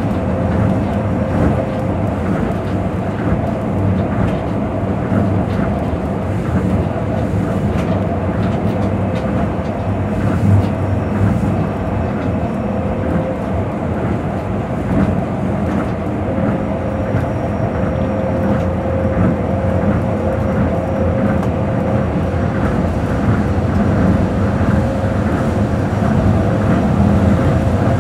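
Onboard running sound of a Tokyo Monorail 2000 series train at speed: a steady rumble of the rubber-tyred running gear on the guideway, with a thin, steady motor whine.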